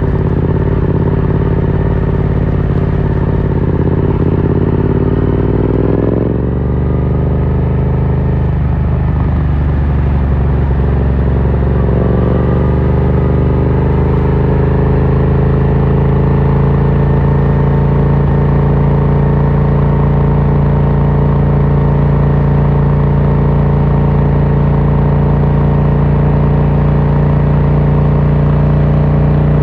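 2018 Yamaha MT-07's 689 cc parallel-twin engine through an Akrapovic carbon full exhaust, riding under way. The engine note climbs in pitch as the bike accelerates over the first dozen seconds, with a break about six seconds in, then holds steady at a constant cruising speed.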